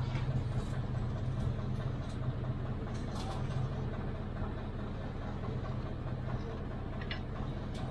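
An engine idling steadily, a low even hum, with a couple of faint clicks about three seconds in and near the end.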